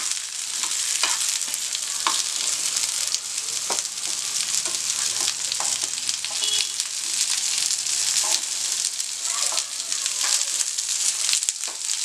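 Thickly cut onion pieces sizzling in hot oil in a pan, a steady high hiss, with a spatula stirring them and clicking against the pan now and then.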